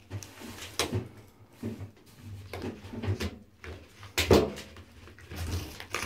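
A red fox gnawing a bar of soap on a bathtub floor: irregular knocks and scrapes of teeth and soap against the tub, the loudest about four seconds in.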